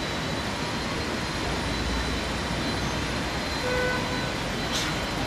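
Steady city street noise: traffic rumble and general urban hubbub. A brief hiss comes near the end.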